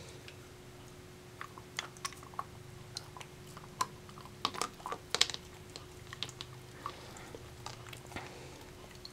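Dachshund biting and chewing at a crunchy treat: irregular sharp crunches and clicks, thickest in the middle and loudest about five seconds in, over a faint steady hum.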